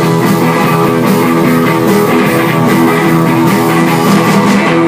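Live rock band playing loud, with electric guitars, keyboard and drum kit.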